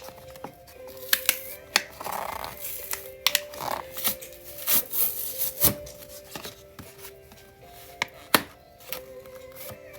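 A slime container being handled and opened: several sharp clicks and short rustling scrapes from the lid and packaging, the loudest click late on, over soft background music with sustained tones.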